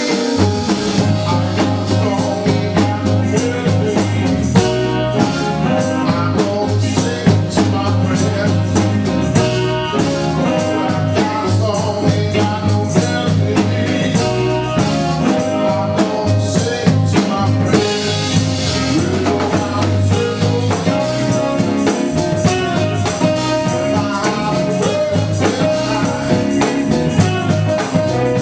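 A live band playing a song with a steady drum-kit beat, a bass line and a singer.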